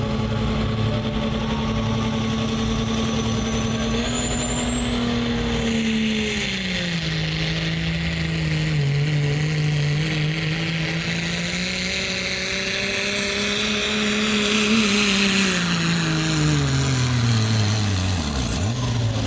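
Turbocharged diesel pickup truck pulling a weight-transfer sled. The engine holds steady revs, then about four seconds in the throttle opens and a turbo whistle sweeps sharply up in pitch and holds. The engine note sags under the growing load, climbs again, then winds down near the end as the pull ends.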